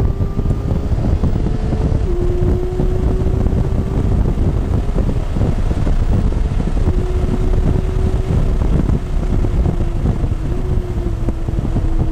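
Porsche engine heard from inside the cabin at track speed. It pulls hard in third, upshifts to fourth about two seconds in, and holds high revs down the straight under heavy wind and road noise. Near the end the revs drop as the car brakes.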